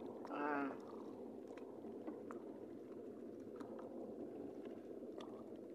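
Faint, steady wash of sea water around a small outrigger boat, with a few light ticks scattered through it and a brief hum from a man's voice about half a second in.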